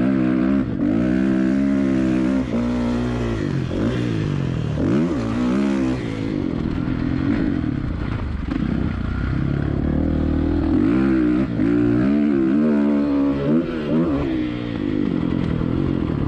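Kawasaki KX450F's single-cylinder four-stroke motocross engine under way, revving up and down again and again as the bike accelerates and backs off along the track.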